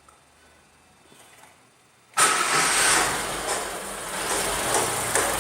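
Chevrolet Corsa Wind engine started about two seconds in and running, with a ticking 'tec tec' noise. The owner traces the noise to a seized water pump bearing that has chewed the timing belt teeth.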